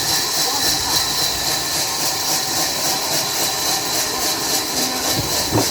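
Sawmill machinery running steadily, a loud hissing mechanical noise that pulses several times a second, with a short knock near the end.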